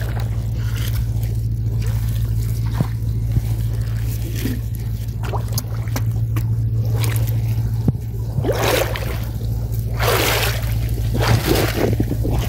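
Water sloshing and splashing as someone wades through a shallow canal, with two louder splashes about two thirds of the way in, over a steady low hum.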